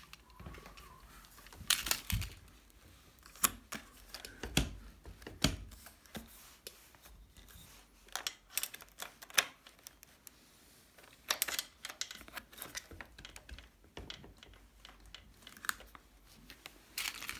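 Hands working at an e-bike's seat-tube battery pack and its wiring: scattered plastic clicks, knocks and rustles coming at irregular intervals.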